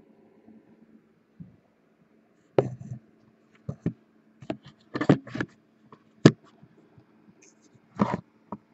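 Irregular light knocks, clicks and rustles of handling, about eight scattered over the second half, over a faint steady hum.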